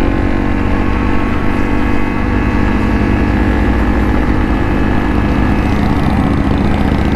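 Honda CRF250L single-cylinder dual-sport motorcycle engine running steadily in third gear at a constant cruising speed, its pitch holding level.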